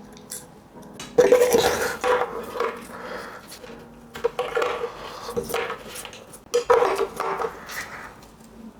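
Small metal bicycle parts, crankset spacers and crank components, clinking and scraping against each other as they are handled and fitted. The clatter comes in three bouts, with a short metallic ring in each.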